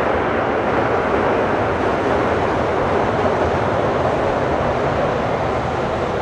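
Airliner jet engines running loud and steady, a broad, even roar with no distinct tones.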